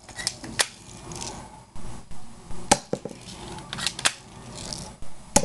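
Airsoft gun being fired at cardboard and styrofoam box targets: a series of sharp snaps and clicks, about seven spread irregularly, some in close pairs.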